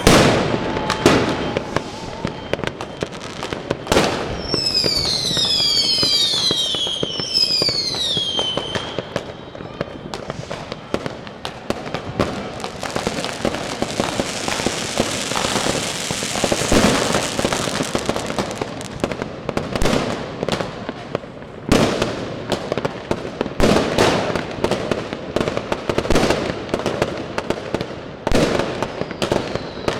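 New Year's Eve firecrackers and fireworks going off all around: a rapid string of sharp bangs and pops. Several whistles falling in pitch come about five seconds in, and there is a long hiss in the middle.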